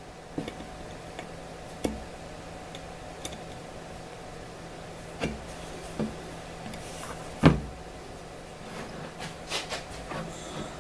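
Handling knocks and clacks as steel alignment pins are pulled from an aluminum plate and the plate is lifted and set back down on an MDF fixture board. The knocks are scattered, the loudest about halfway through, with a quick run of them near the end, over a faint steady hum.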